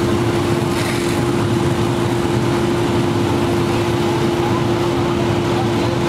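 A fire engine's motor and pump run steadily, a constant drone with a steady whine.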